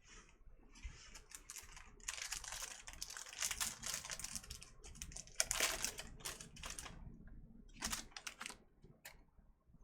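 Trading-card pack being handled: a run of irregular rustling and crinkling as the wrapper is torn open and the cards are slid out and against each other, loudest about halfway through.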